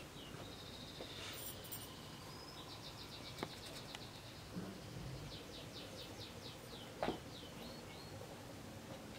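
Faint bird calls: a quick trill of high chirps, then a slower series of separate chirps. A single sharp knock about seven seconds in.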